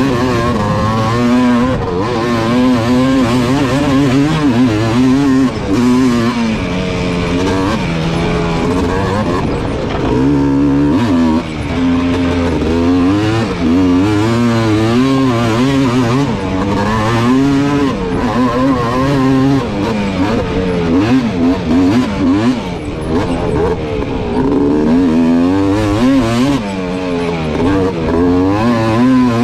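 Sport ATV engine revving up and down continuously while ridden hard in a race, its pitch rising and falling again and again with the throttle.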